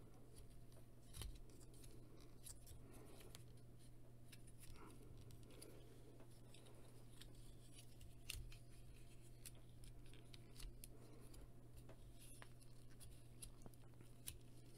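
Faint clicks and light rubbing of a Transformers Cyberverse Dinobot Slug figure's plastic parts and joints as it is handled and its head is worked during transformation, a few scattered clicks over a low steady hum.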